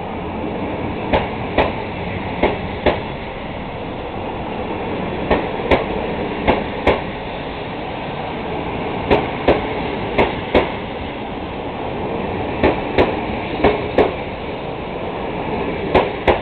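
Passenger train pulling out of a station, its cars rolling past slowly over a steady rumble. The wheels clack over rail joints in pairs of sharp knocks about half a second apart, the pairs coming every one to three seconds.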